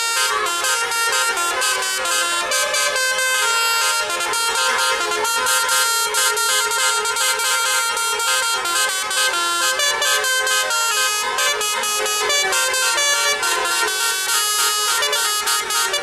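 Bus telolet horn, a multi-tone musical air horn, playing a melody: several tones at once that step from note to note without a break.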